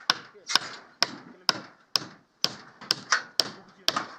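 Hammer blows on timber, struck repeatedly at about two a second, each a sharp crack with a short tail, some struck in quick pairs, as formwork is nailed up.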